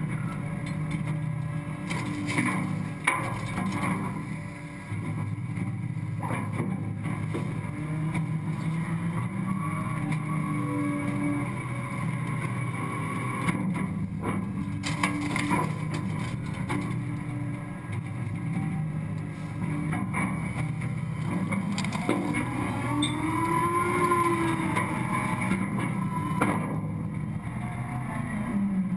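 Scorpion automated side-loader garbage truck's engine and hydraulics running steadily while the arm dumps carts and the packer blade sweeps trash into the body, with repeated clanks and thumps of metal and refuse dropping into the hopper. Late on, the pitch rises and falls once as the machinery works harder.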